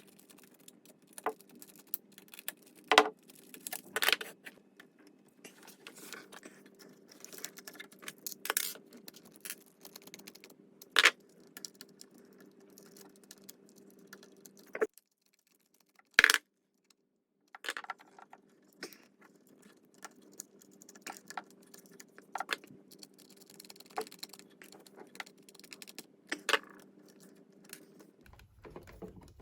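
Irregular small clicks, taps and metallic rattles of hands working on a mains wall socket: screws, screwdriver, wires and plate being handled. A faint steady hum runs underneath, and all sound cuts out for about two seconds midway.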